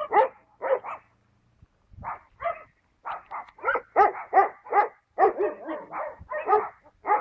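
A dog barking repeatedly: a few barks, a pause of about a second, then a fast run of barks at about four or five a second.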